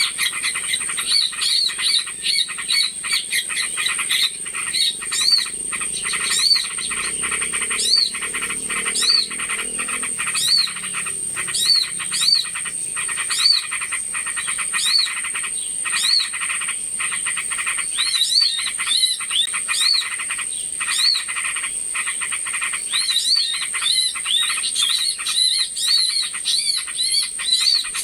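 Bird-lure recording of small birds calling in a dense chorus: a rapid chattering with short arched chirps repeating about once a second, over a steady high-pitched whine.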